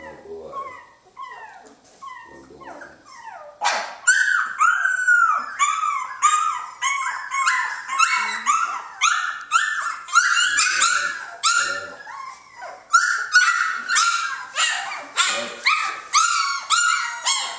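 Three-week-old Jämthund (Swedish Elkhound) puppies crying and yelping: short, high, rising-and-falling squeals, soft at first, then loud and almost nonstop at two or three a second from about four seconds in. A single sharp knock just before they grow loud.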